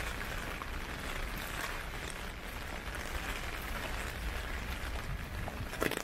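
Heavy typhoon rain falling steadily, a dense even hiss with a low rumble underneath and a few sharper taps near the end.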